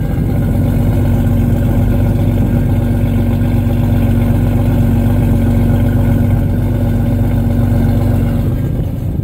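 Jeep Cherokee XJ engine idling steadily at the tailpipe just after a cold start, having sat unused for weeks.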